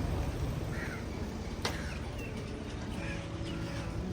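Low steady rumble with a few short, high chirps, likely birds, and a single sharp click about one and a half seconds in.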